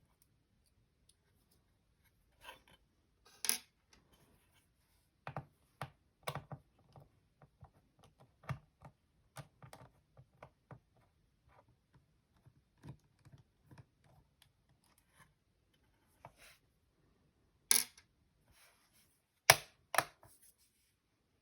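Small clicks, taps and knocks of hands and tools working on a Dell XPS 15 laptop, scattered irregularly, with the loudest sharp knocks near the end.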